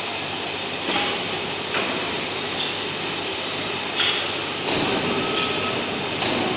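Welding turning rolls running with no load: electric motors driving polyurethane wheels through worm gear reducers, a steady mechanical noise with a few knocks.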